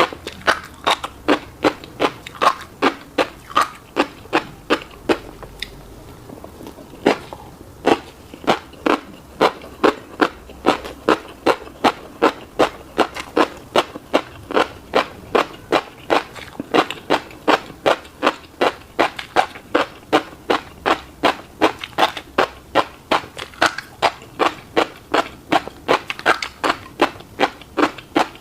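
Close-miked chewing of a mouthful of fish roe and rice, steady at about three chews a second, with one pause of about a second and a half about six seconds in.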